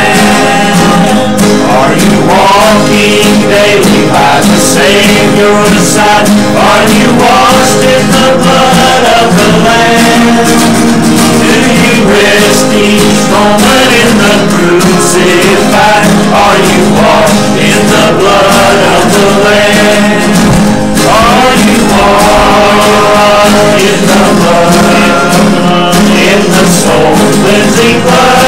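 Men singing a hymn to two strummed acoustic guitars.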